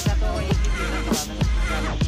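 Background music with a steady beat: deep kick-drum thumps about twice a second under crisp high percussion and a wavering melody.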